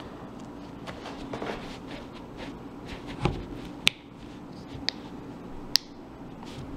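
A knife blade being worked through a slit in a plastic bottle cap: quiet scraping and handling, a dull knock about three seconds in, then three sharp clicks about a second apart.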